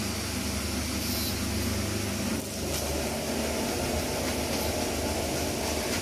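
Roller-type puzzle die-cutting machine running steadily with a low hum as a puzzle die and board are fed through its pressure rollers. The sound shifts slightly about two and a half seconds in.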